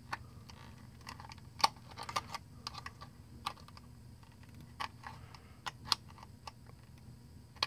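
Small pliers clicking and scraping on a toggle switch's mounting nut and the black plastic project box as the nut is tightened. The clicks are faint and irregular, the sharpest about a second and a half in.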